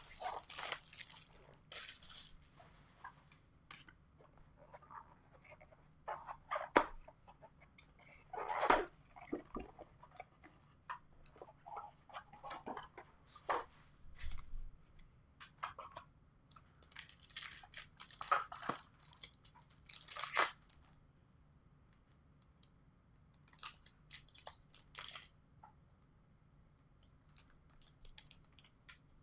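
A sealed box of baseball card packs being opened by hand: plastic wrap and pack wrappers tearing and crinkling as packs are ripped open and cards handled, in scattered short crackles and a few longer rips.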